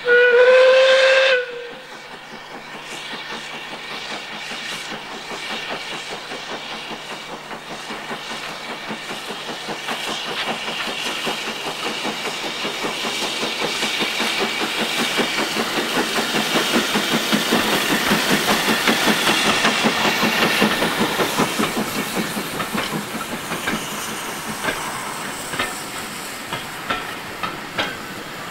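Steam locomotive No 3 Twizell sounds a short whistle blast, then its exhaust beats come on fast and build as it approaches hauling coaches, at their loudest as it passes about two-thirds through and fading after. Near the end the passing coaches' wheels click over the rail joints.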